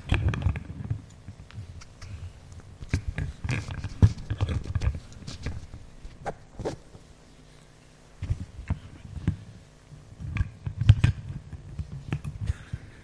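Irregular knocks, clicks and low thumps close to a microphone, with no speech, easing off for a moment about halfway through.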